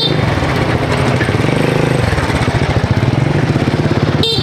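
A motorbike's small engine running steadily, with a short horn toot near the end.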